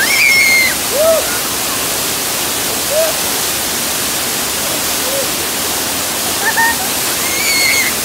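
Large waterfall pouring onto rocks and into a pool: a loud, steady rush of water. A few brief cries from people under the falls break through it, a high one right at the start and another near the end.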